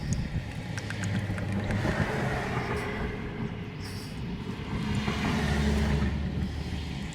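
A motor vehicle's engine running, getting louder around one to two seconds in and again about five seconds in.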